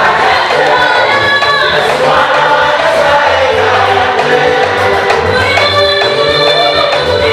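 A choir singing in harmony with a band, an upbeat gospel song in an African style, over a steady bass line.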